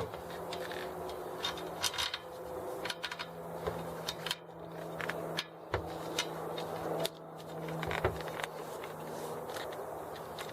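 Scattered scrapes, rubbing and small clicks of a bicycle tyre and inner tube being handled and worked onto a wheel rim, over a steady low hum.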